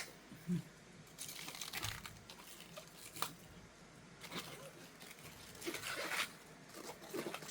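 Leaves of a raw cabbage head being torn off one at a time: several short, quiet, crisp tearing and crinkling sounds spaced a second or so apart.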